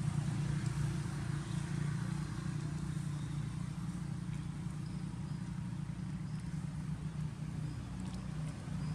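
Steady low engine hum, running evenly throughout.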